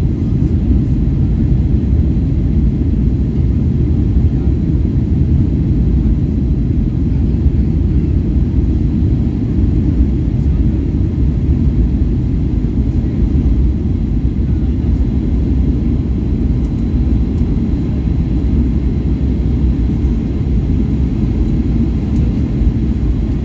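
Steady inside-cabin noise of a Boeing 737-800 on approach with flaps extended: an even low rumble of its CFM56 turbofan engines and the airflow over the airframe, with no distinct events.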